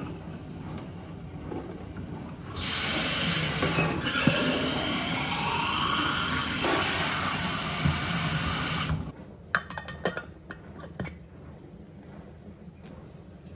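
Water running into a container for about six seconds, its pitch rising as the vessel fills, then cutting off suddenly. A few light clicks and knocks follow.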